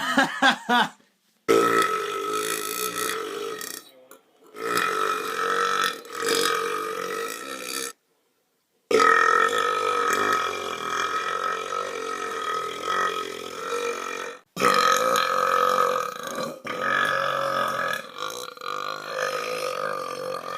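A run of long, drawn-out belches, several seconds each, cut one after another with brief silent breaks between them.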